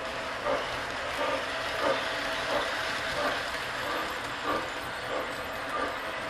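O gauge model trains running on three-rail track: a steady rolling noise with a faint hum and a regular beat about every two-thirds of a second.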